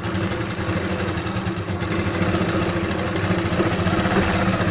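Electric motor-driven sewing machine running steadily while stitching fabric: a constant motor hum with fast needle clatter.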